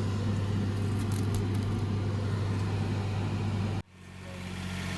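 A vehicle engine running with a steady low drone. It cuts off abruptly about four seconds in, and another engine comes in at a steady idle.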